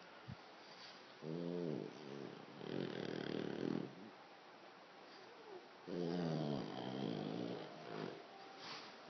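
French Bulldog grunting while sucking on a baby's pacifier: two drawn-out pitched grunts, one about a second in and one about six seconds in, with noisy breathing between.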